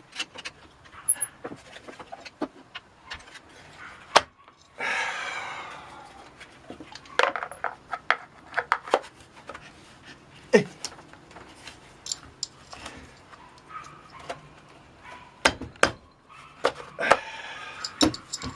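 Small chainsaw parts and hand tools being handled during reassembly: an irregular string of clicks, clinks and taps of metal and plastic, with a short louder rush of noise about five seconds in.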